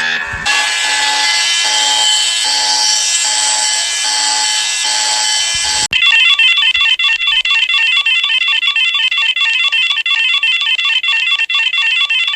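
Electronic emergency-alert alarm tones. First a dense multi-tone alarm with a low tone pulsing under it, then about six seconds in an abrupt switch to a rapidly alternating high warbling alarm tone.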